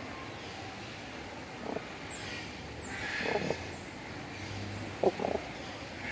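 Crowned crane giving short honking calls, about four in all, the last two close together, over a steady background hiss.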